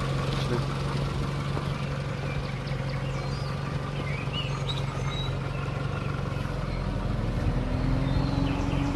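Small car engine of a 2006 Nissan March running steadily at low revs, then revving up about seven seconds in and holding at the higher speed.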